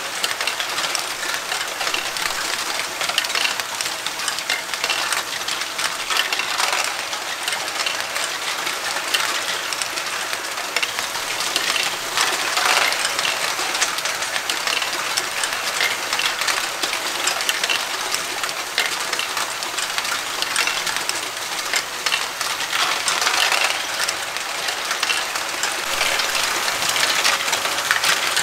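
LEGO Great Ball Contraption modules running: dozens of small plastic balls clicking and rattling continuously through plastic tracks, lifts and gear wheels, over the steady whir of the LEGO train motors that drive them. The clatter swells now and then as batches of balls drop through.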